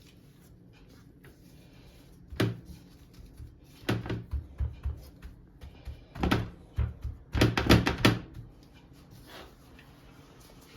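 A string of sharp knocks and bumps as things are handled and set down, in small clusters, the loudest group about eight seconds in.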